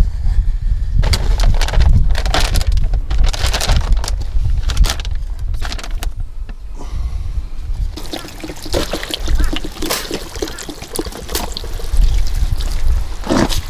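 Wind buffeting the microphone in a heavy, constant rumble, with irregular rustling and clattering noises over it.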